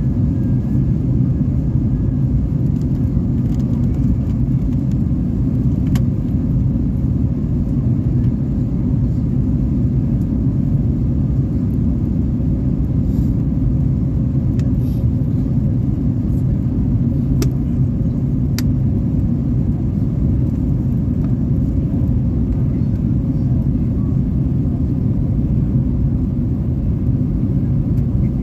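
Jet airliner cabin noise on descent: the steady, even rumble of the engines and the airflow over the fuselage, heard from a seat over the wing. A few faint ticks sound in the cabin.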